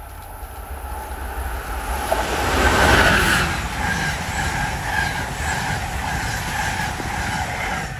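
Amtrak Northeast Regional train led by an ACS-64 electric locomotive passing at speed. The rush of the train builds to its loudest as the locomotive goes by about three seconds in. The Amfleet passenger cars then roll past with a steady run of wheel clicks.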